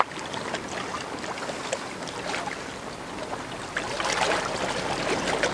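Wind-driven waves slapping and lapping against the reservoir bank, with wind buffeting the microphone, a crackling wash of water that grows louder about four seconds in.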